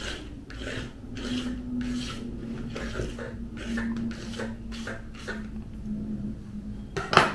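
Cardstock scraps rubbing and scraping across a cutting mat as they are pushed aside: a run of short rasping strokes, two or three a second, with one sharp click near the end.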